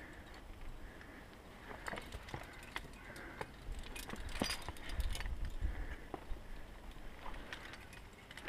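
Metal climbing gear clinking and scraping against rock as a climber moves, with many scattered sharp clicks. A gust of wind buffets the microphone about halfway through.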